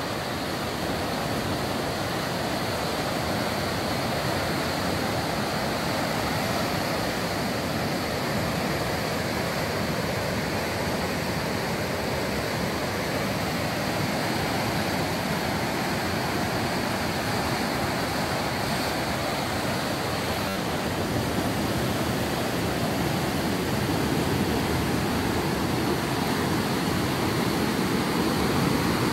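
The River Wharfe in flood, brown water rushing and churning over rock rapids in one steady roar, growing a little louder near the end.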